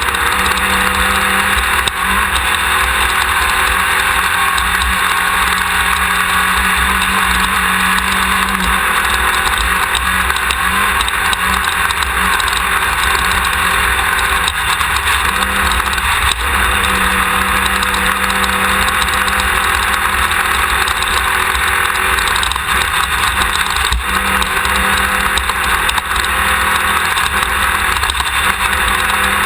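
Class 1600 off-road race car at speed: its air-cooled VW flat-four engine running under load, its note coming and going, under a steady loud rush of wind and terrain noise.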